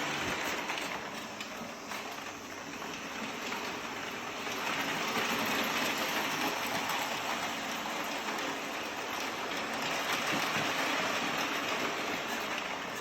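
O gauge model train running on its track, a steady rattling rumble of wheels on rail that dips a couple of seconds in, then grows louder and holds for several seconds as the train passes close by.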